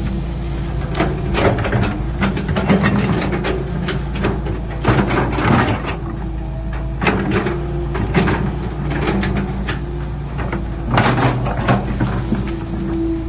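Excavator at work: its engine runs steadily, with repeated irregular metal clanks and knocks over it.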